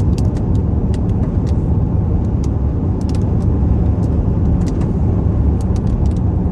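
Steady low rumble of a car being driven, heard inside the cabin, with scattered sharp ticks throughout.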